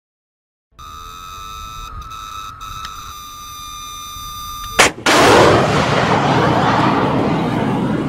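FIM-92 Stinger missile launch. A steady electronic seeker tone, the sign that the seeker has acquired a target, sounds for about four seconds. Near five seconds in a sharp bang from the ejection motor is followed a moment later by the loud, continuous rush of the rocket's flight motor.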